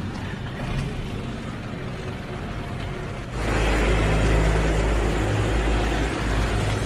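Motor vehicle road noise. About three seconds in it gets suddenly louder, with a heavy low rumble and a rushing noise that hold for several seconds.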